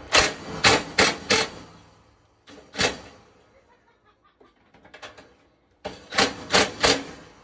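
Sharp knocks and clacks of hard objects against a dryer's sheet-metal panel while a cordless drill and the panel are handled: a quick run of four, a single one a few seconds later, and another run of three or four near the end.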